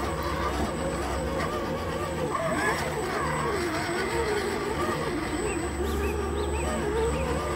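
Electric motor and geared drivetrain of an RC crawler whining as it drives through a shallow creek, the pitch wavering up and down with the throttle.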